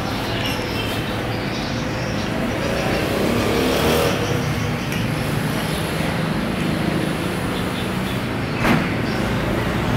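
Steady road traffic, with one vehicle passing louder about three to four seconds in, and a single sharp knock near the end.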